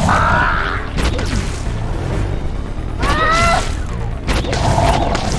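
Film action soundtrack: dramatic score mixed with sound effects of crashes, booms and mechanical clatter, with short arching pitched cries near the start and about three seconds in.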